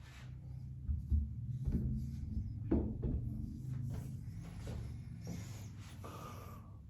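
A travel tripod being handled, its parts knocking and clicking several times in the first three seconds over a low rumble, then a brief scrape near the end.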